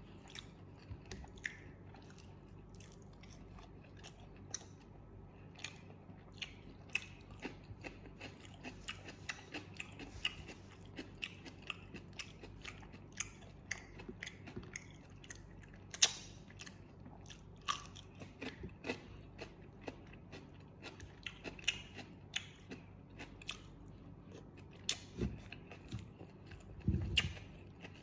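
A person biting and chewing crispy fried catfish, with many small crunches and clicks. There is one sharp crack about halfway through and a few low thumps near the end.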